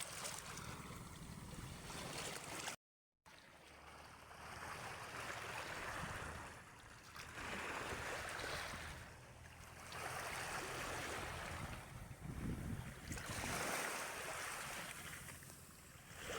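Small sea waves washing onto the shore, the rush swelling and fading every two to three seconds. The sound cuts out completely for a moment about three seconds in.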